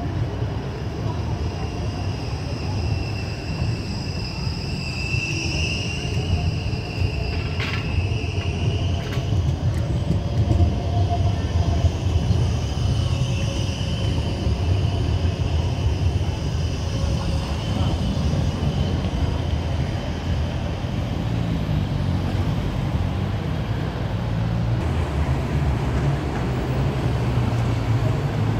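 A VBZ Flexity low-floor tram rolls past close by over curved junction track with a steady low rumble. For stretches its wheels give a high squeal on the curve, and there is a sharp clack about eight seconds in as it runs over the points.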